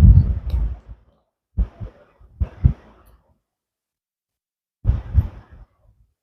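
Close-miked crunching and chewing of slate pencils in the mouth. A loud bite and crunch at the start is followed by a few shorter chews around two and three seconds in, and another crunch about five seconds in, with silence between.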